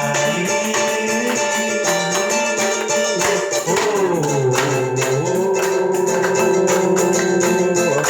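A band playing live, with steady pitched instruments gliding between notes over shaken and struck percussion.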